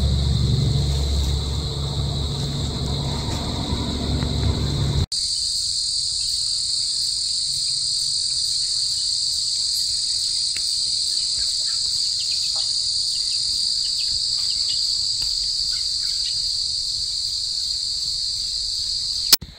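Steady, high-pitched chorus of crickets and other insects. For the first five seconds a low steady rumble runs underneath, then stops abruptly, leaving the insects alone; a sharp click near the end.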